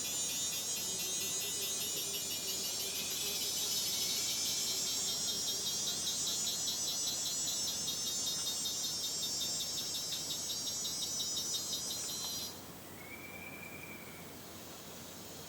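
Dense, high-pitched, rapidly pulsing insect chorus of rainforest crickets, which cuts off abruptly about twelve seconds in. A quieter background remains, with a short whistled call that rises and falls once.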